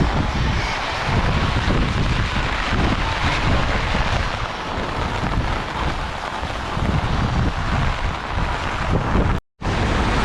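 Strong storm wind gusting and buffeting the microphone, with heavy rain. The sound cuts out for a moment near the end.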